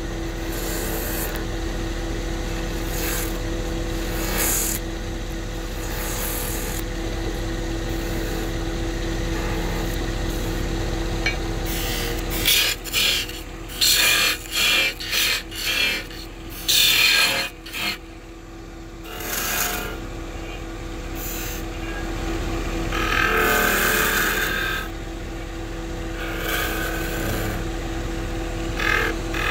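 Wood lathe running with a steady motor hum while a turning tool cuts the spinning wood with a rough scraping sound. About halfway through come a run of short, louder cutting strokes, then a longer pass.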